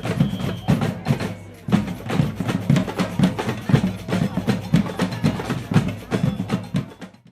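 Samba band drumming: a fast, steady beat of drum and wood-block strikes.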